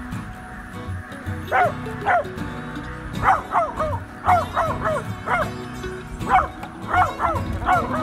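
Beagle barking in short clusters of two or three, each bark falling in pitch, about a dozen in all, over background music.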